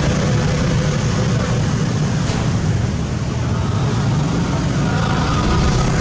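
Street traffic: vehicle engines, motorcycles and cars among them, running steadily, with a crowd's voices mixed in.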